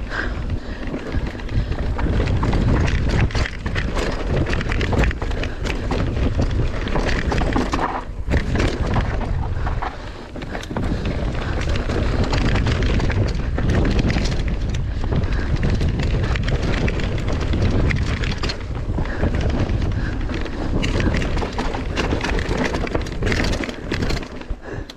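Mountain bike descending a rough trail at race speed: tyres on dirt, with many short knocks and rattles from the bike over the bumps, and heavy wind noise on the microphone.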